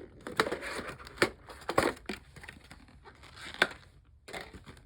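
Plastic packaging crinkling and tearing as it is handled and opened, with several sharp clicks among the rustling.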